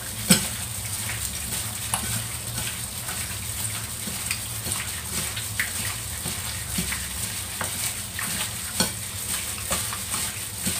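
Chopped chicken being mixed by a plastic-gloved hand in its marinade in a ceramic bowl: a steady wet rustling with many small irregular clicks.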